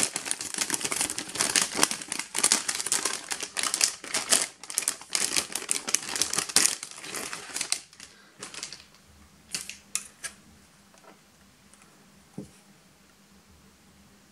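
Crinkling and crackling of a metallic anti-static bag being pulled open by hand, for about seven seconds. Then a few light clicks and a soft knock as a motherboard is handled, and it goes quiet.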